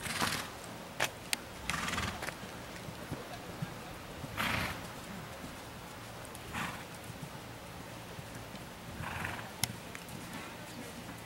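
Horse cantering on a sand arena: hoofbeats, with short loud snorts about every two seconds and a few sharp clicks.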